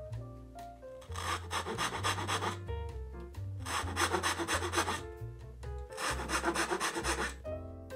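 Japanese pull saw cutting cherry wood in three runs of quick rasping strokes, each lasting about a second and a half, over soft background music.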